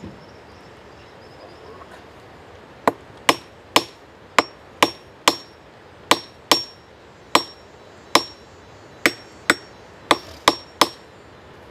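Claw hammer striking metal on a small metal anvil block, about fifteen sharp blows at roughly two a second, each with a short high ring, while a wire point for a bow-fishing arrow is shaped.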